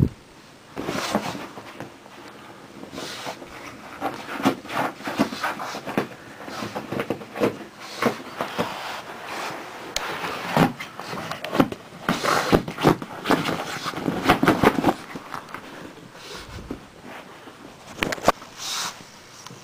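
A pug scuffling with a pillow on carpet: an irregular run of rustles, scrapes and soft thumps as its paws and body push against the fabric, busiest about halfway through.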